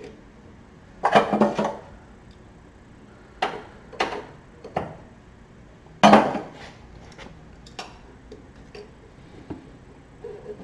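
Metal hand tools and parts clattering and knocking as they are handled and set down: two loud clattering bursts about a second in and about six seconds in, a few sharper knocks between them, and light ticks near the end.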